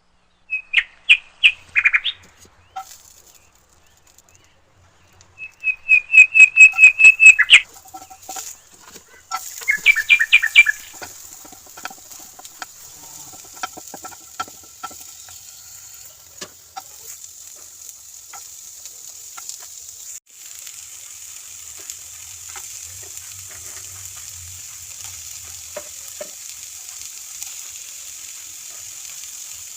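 Food sizzling in a hot cooking pan while it is stirred, the hiss steady with scattered ticks and scrapes of the spoon from about ten seconds in. Before that come three quick runs of short, sharp, high chirps, each of a handful of notes.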